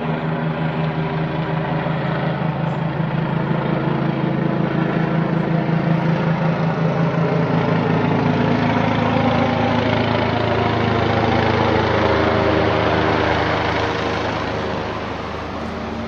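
Police helicopter flying overhead, its rotor beating with a fast, even pulse over a steady engine drone. It grows louder through the middle and fades somewhat near the end.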